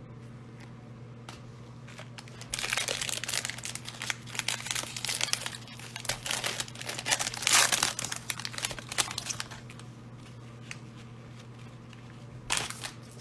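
Wrapper of a trading card pack crinkling and tearing as it is ripped open by gloved hands. The sound comes in irregular bursts for several seconds and is loudest about halfway through. There is a short rustle near the end.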